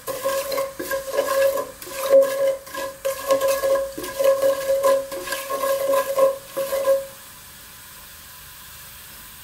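Wooden spatula stirring and scraping cumin seeds frying in oil in a non-stick pot, the quick strokes carrying a ringing tone. The stirring stops about seven seconds in, leaving a faint steady sizzle.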